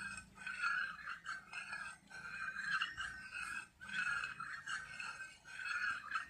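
A metal spoon scraping around the bottom of a bowl as it stirs liquid mercury in sulfuric acid, a grating stroke repeating a little more than once a second.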